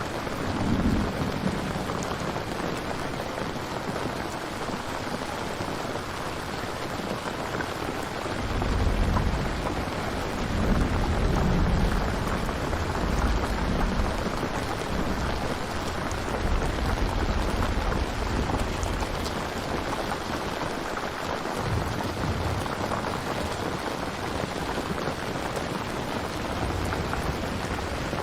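Steady heavy rain pattering, with thunder rumbling low through the middle, loudest about a third of the way in and fading out past the midpoint.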